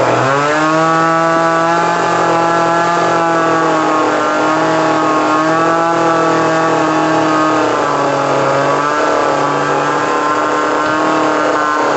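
Small two-stroke chainsaw revved up and held at high, steady speed, its pitch dipping slightly now and then as it carves initials into an apple, then dropping off near the end.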